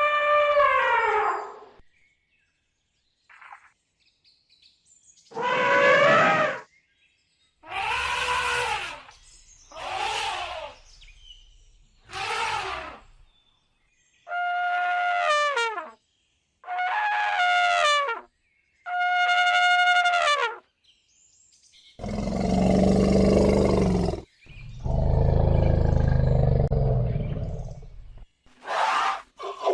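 Elephant trumpeting: about eight separate brassy blasts, each a second or so long, several falling in pitch at the end. Later come two longer, low, rough rumbling roars, followed by a few short quick calls.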